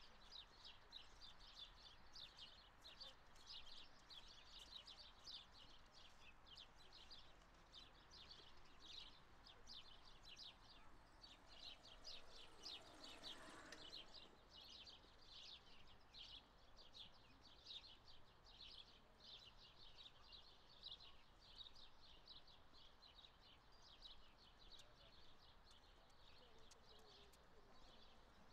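Many small songbirds chirping continuously in a quick, overlapping chatter, heard faintly over low outdoor background noise. About halfway through, a brief faint whoosh swells and rises in pitch.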